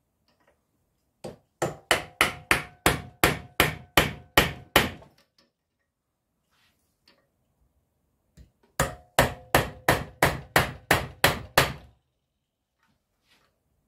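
Hammer striking a small flat blade held against the metal crimp tabs on a Ford Focus ABS pump motor casing clamped in a bench vise, knocking the tabs back. Two runs of about a dozen quick blows each, roughly three a second, with a faint metallic ring and a pause of a few seconds between them.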